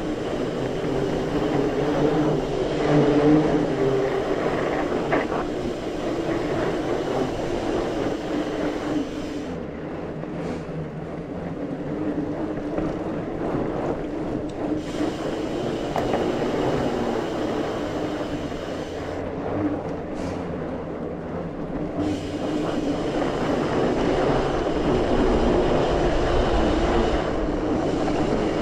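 Mountain bike rolling along a dirt singletrack trail: a continuous rumble of tyres on the ground and rattle of the bike.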